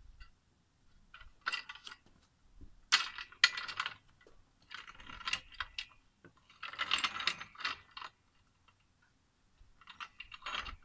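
Metal clinks and rattles from a hydraulic floor jack and its steel handle being fitted and worked, coming in several irregular clusters of short clicks.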